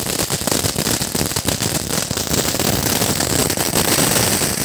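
Diwali firecrackers going off together in a dense, rapid, continuous crackle of pops, over the steady hiss of fountain crackers spraying sparks.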